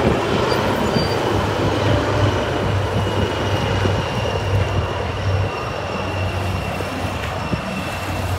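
A formation of HAL Dhruv helicopters of the Sarang display team flying past, their rotors making a continuous low chop with a faint high whine.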